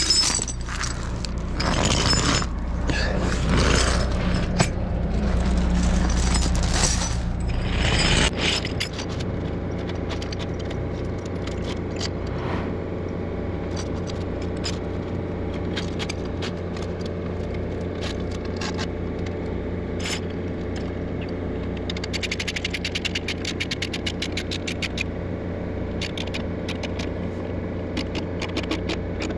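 Heavy truck's diesel engine running steadily under way, heard inside the cab, with rattling and scraping from the cab and load. A louder rushing road noise fills the first eight seconds or so, then it settles to a steady drone with bursts of fast rattling ticks.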